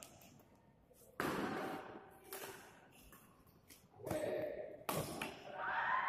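Badminton rally: sharp racket-on-shuttlecock hits about a second in and again around four and five seconds in, each with a ringing echo off the hall. A raised voice swells near the end.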